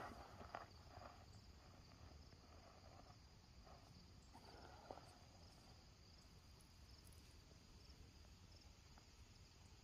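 Near silence: faint, steady, high-pitched insect chirping, with a few soft crunches in the first second and again around four to five seconds in.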